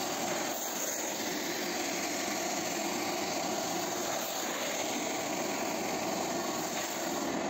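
Steam upholstery-cleaning vacuum's suction running steadily as its flat wet-extraction nozzle is drawn across a fabric seat, pulling the dissolved stain and moisture out of the upholstery.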